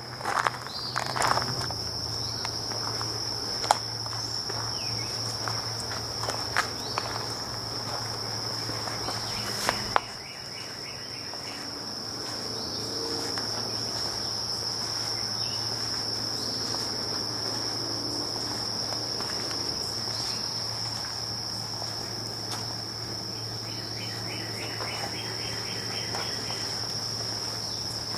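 Steady high-pitched drone of insects in the woods, with the camera operator's footsteps clicking on the path during the first ten seconds or so.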